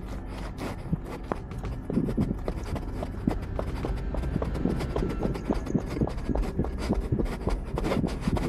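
Quick running footsteps on a paved road, stronger from about two seconds in, over a steady low rumble.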